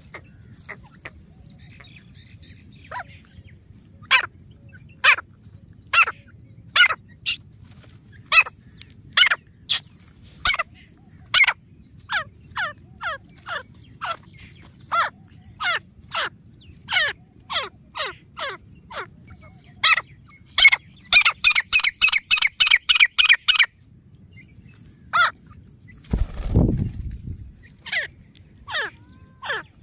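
Grey francolins calling: short, sharp, falling notes repeated about once a second, with a fast chattering run of about a dozen notes about two-thirds of the way through. A brief loud low rumble comes near the end.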